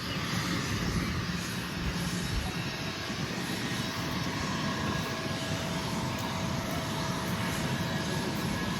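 Airplane engine running steadily: a constant rushing noise with a faint steady whine, unchanging throughout.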